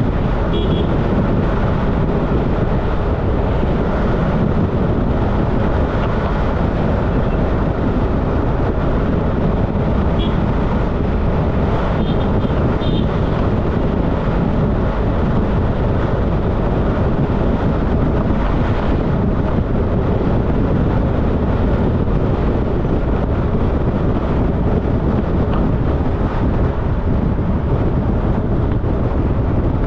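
Steady wind rush over the microphone with the road and engine noise of a motorcycle riding along.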